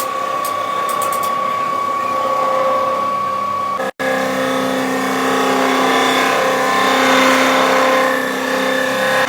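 Truck engine running steadily, with a brief dropout about four seconds in, after which its note changes and it runs a little louder.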